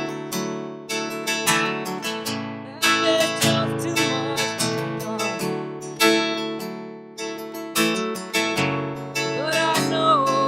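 Acoustic guitar strummed and picked, ringing chords struck every second or so, with a faint voice joining near the end.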